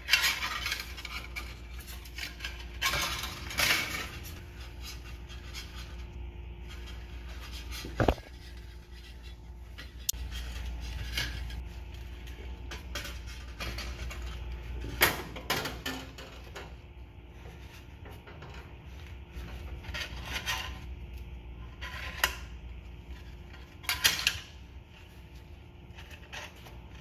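Flat steel recoil-starter spring of a small Johnson/Evinrude outboard being wound by hand, counterclockwise, into its metal starter housing: irregular metallic clinks and scrapes as the coils slide and catch.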